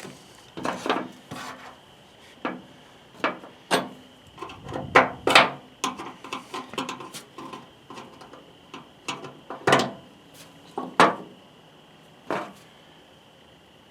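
Hand tools and metal parts being handled while working on a pickup's tailgate latch: a dozen or so irregular knocks, taps and clatters, the loudest about five seconds in, with quieter scraping and rubbing between.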